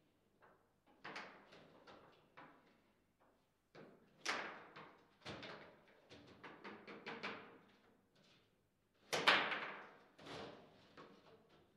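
Table football in play: the ball struck by the rod figures and knocking off the table walls, an irregular series of sharp clacks and thuds, the loudest about four and nine seconds in.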